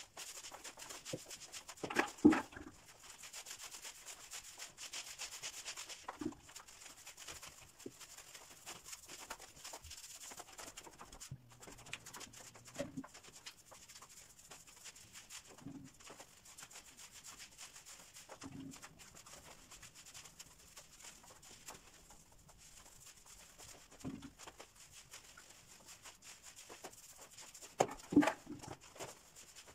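A paint roller on an extension pole rolling water-based paint onto a wall, a soft repeated rubbing. Louder knocks and clatters come about two seconds in and again near the end, when the roller goes down into the plastic paint bucket.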